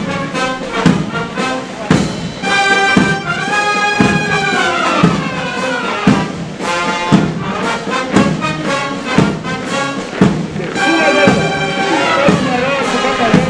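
Military brass band playing a march: trumpets and trombones over a steady bass-drum beat, about two strokes a second.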